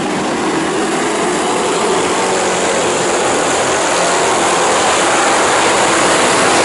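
A pack of Thunder Stock race cars on a dirt oval, their engines running together in a dense roar that grows steadily louder as the field comes down to the green flag.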